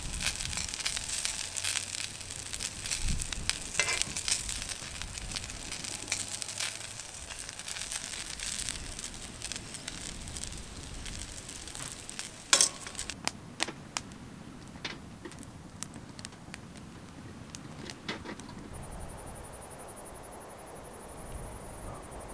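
Food sizzling and spitting in a frying pan on a grill over a wood fire, with a sharp click of metal tongs against the pan about twelve seconds in. After that the sizzle grows quieter.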